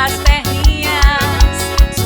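Forró music with a steady, fast bass-drum beat about three times a second under a wavering melody.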